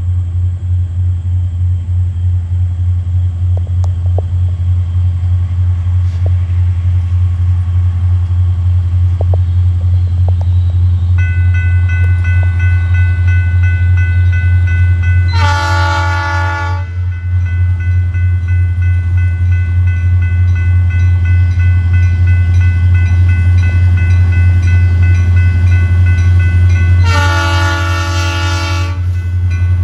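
Diesel locomotive running with a loud, steady low rumble, sounding its multi-chime horn twice: a short blast about 15 seconds in and a longer one near the end.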